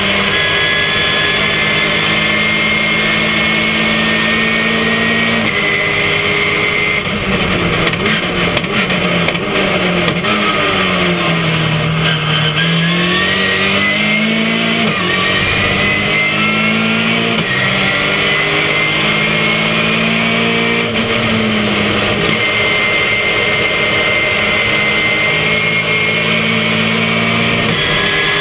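Ginetta GT5 race car's engine heard from inside the cockpit at racing speed. It is held at steady high revs at first; about a quarter of the way in the revs fall away, reach their lowest near the middle, then climb back in steps. Near the end they hold steady again.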